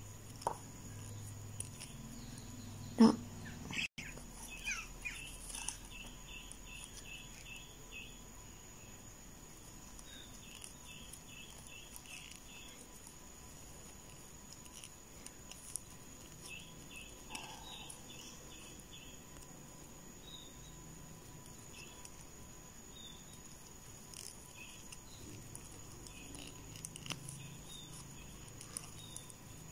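Faint runs of quick, evenly spaced high chirps from a small animal, several times over, with one sharp click about three seconds in.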